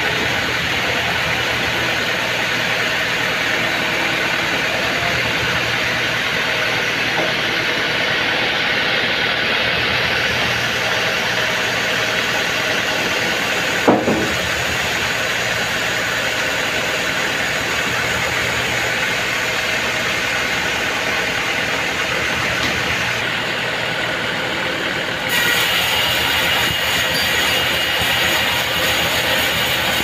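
Sawmill band saw running steadily and cutting through a mahogany log, with one sharp knock about fourteen seconds in. Near the end the noise steps up, louder and brighter.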